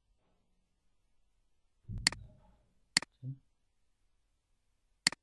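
Three sharp computer mouse clicks: one about two seconds in, another a second later, and a last near the end.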